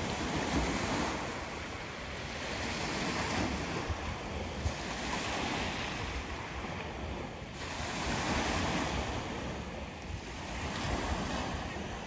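Sea waves washing in on the shore, the sound swelling and falling every two to three seconds, with wind buffeting the microphone.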